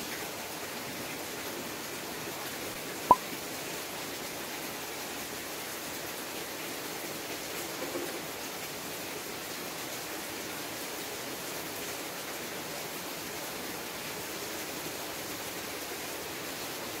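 Steady rain falling, an even hiss. One sharp, loud click about three seconds in.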